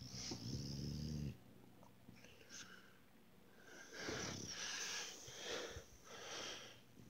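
Sleeping bulldog puppy snoring: a low snore about a second long at the start, then after a short pause a run of louder, noisier breaths in the second half.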